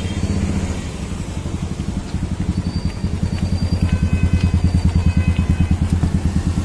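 Vehicle engine idling close by in street traffic: a steady low throb that pulses about ten times a second, clearest in the second half.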